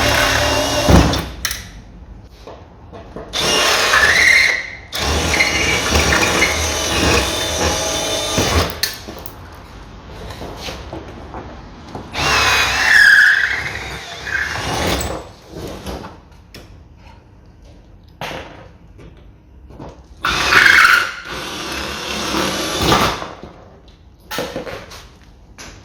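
Electric drill drilling out the rivets that hold a car window regulator to its metal carrier plate, the bit squealing on the metal. It runs in about five bursts of one to three seconds, with pauses between them.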